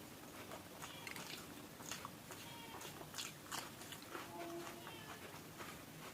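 A person chewing and biting food close to the microphone, with wet lip-smacking and mouth clicks coming every fraction of a second, now and then a soft crunch.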